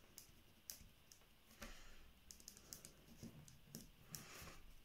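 Faint scratching and tapping of a four-colour ballpoint pen writing on a paper worksheet, in short irregular strokes.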